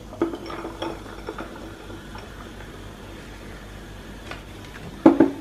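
Glass marble-stoppered ramune soda bottle being poured into a glass of ice, with light clinks of the marble and glass in the first second. Two louder sharp knocks come near the end.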